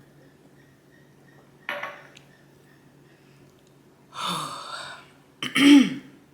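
A person sighing after eating: a short sharp noise, then a long breathy exhale, then a louder short voiced sigh whose pitch rises and falls.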